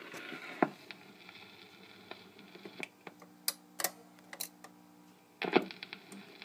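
Light clicks and knocks from the 1954 RCA EY-3 45 rpm record player's tone arm and mechanism as the record ends, over a faint steady hum from the player. The clicks come singly, one under a second in and several around the middle, with a quick cluster near the end.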